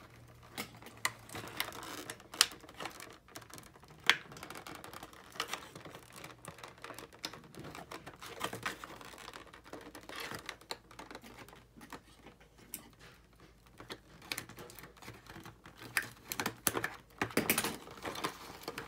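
Irregular light clicks, taps and rustles of small plastic toy pieces and cardboard packaging being handled and pulled out of a tightly packed toy box, busier near the end.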